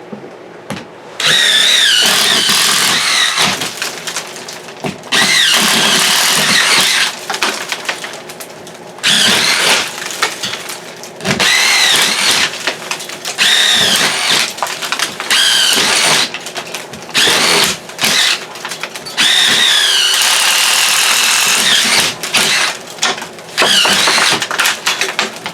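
Power tool cutting into the ceiling for a ceiling-fan box, running in repeated bursts of one to three seconds with short pauses, its whine dipping and rising under load.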